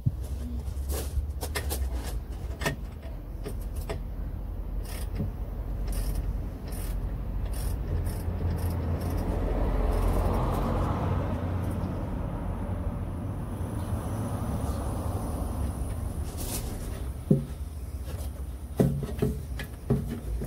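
Clicks and knocks of a hand oil-filler syringe being worked at a manual gearbox's fill hole while refilling it with gear oil, then a few louder knocks near the end as the syringe comes out and the fill plug is handled. Under it runs a steady low rumble, and a vehicle sound swells and fades about halfway through.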